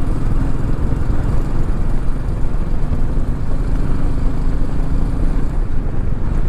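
Motorcycle riding at road speed: a steady engine drone under heavy wind rumble on the microphone.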